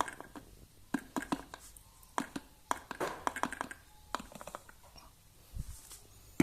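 Taps, clicks and rustling scrapes of powdered bird feed mixed with milk powder being poured and handled in a container.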